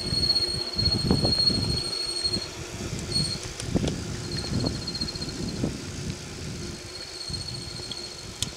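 Wind buffeting the microphone of a mountain bike rider rolling on a paved road, in uneven gusts. A thin high-pitched whine comes and goes over it, and a sharp click sounds near the end.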